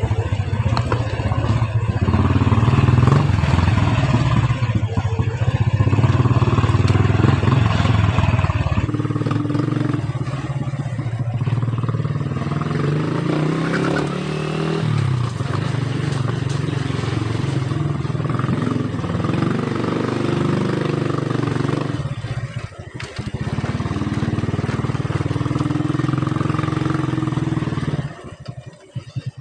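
Motorcycle engine running at low riding speed, heard from the rider's helmet, its pitch shifting with the throttle about 9 and 15 seconds in. It drops away sharply near the end as the bike slows.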